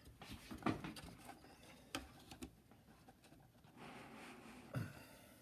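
Faint small clicks and scratches of fingertips and fingernails pressing a tiny U.FL antenna connector onto a circuit board, with a couple of brief low murmurs, about a second in and near the end.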